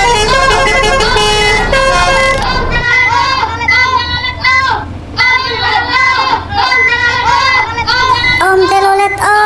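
Bus telolet horn, a multi-tone musical air horn, playing a tune of short held notes, over a low engine rumble for the first few seconds.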